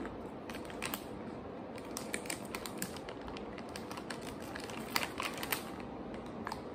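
Crisp crunching of hard candied sweet-potato sticks (imo kenpi) being chewed: a run of short sharp clicks in small clusters. The plastic snack bag is handled and crinkles near the end.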